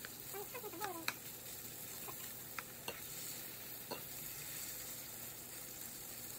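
Chicken breasts sizzling steadily in a frying pan, with a few light clicks of a utensil against the pan during the first four seconds.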